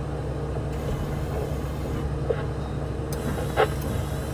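Kato MR-350R rough-terrain crane's diesel engine running steadily, heard from inside the operator's cab, with two faint clicks about three seconds in.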